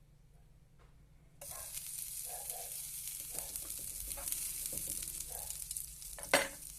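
Butter in a hot frying pan suddenly starts sizzling about a second and a half in and keeps up a steady sizzle as food goes in to sear. A single sharp knock, the loudest sound, comes near the end.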